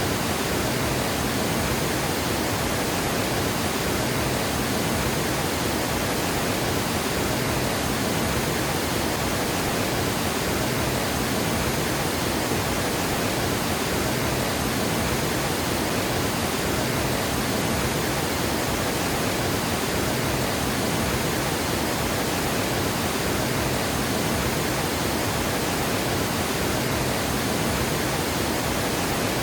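Water pouring over a dam, a steady rushing that does not change.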